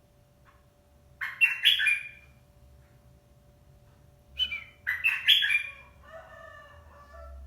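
Bulbul (merbah) decoy bird calling: two loud bursts of quick chirping notes, about a second in and again about four and a half seconds in, followed by a softer, lower warbling phrase. A faint steady hum runs underneath.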